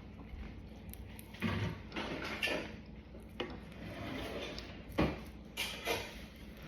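Foam-ball slime being squeezed and pressed by hand, giving irregular soft crackles and pops, about seven over a few seconds.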